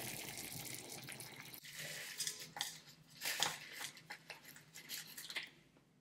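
Water bubbling at a boil in a clay pot on a gas hob, then, about a second and a half in, a scattering of sharp crinkles and clicks as the plastic-wrapped packet of dried ginseng, ginger and date tea is handled over the pot.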